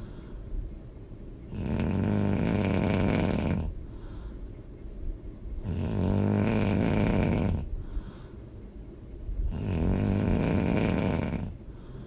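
A sleeping woman snoring loudly: three long snores about four seconds apart, with quieter breathing between them.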